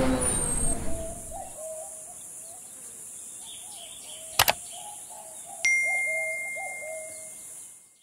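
Logo-intro sound effects: a falling whoosh fading out, faint warbling tones, a sharp click about four and a half seconds in, then a bell-like ding whose single ringing tone hangs on and fades away.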